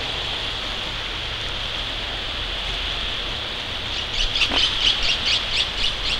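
Steady rush of creek water running over rapids. About four seconds in, a bird starts calling a quick run of repeated high notes, about six a second.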